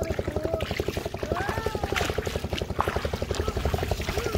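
An engine running steadily with a fast, even pulsing beat, with short sliding chirps over it.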